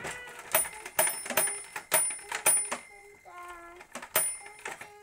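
Vintage Fisher-Price Parking Ramp Service Center toy garage being played with: a string of irregular plastic clacks and clicks, several of them followed by a short, high, bell-like ring.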